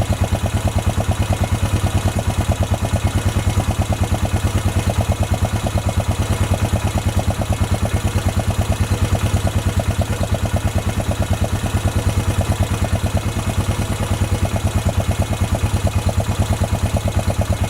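Freshly rebuilt 2007 Honda ATV single-cylinder engine idling steadily with an even, rapid putter. The owners suspect the carburetor is flooding.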